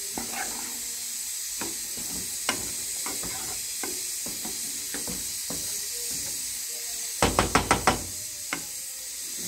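Wooden spoon stirring spaghetti in a non-stick pot: scattered soft knocks and scrapes against the pot over a steady hiss from the hot pan. About three-quarters of the way through comes a quick run of about six louder knocks, the loudest part.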